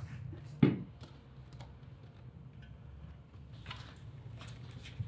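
Steps on wooden stairs: one heavy thud about half a second in, then faint light taps.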